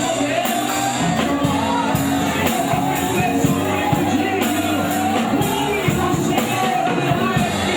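Live gospel band playing with a drum kit keeping a steady beat, electric guitar, bass and keyboard, and voices singing over it.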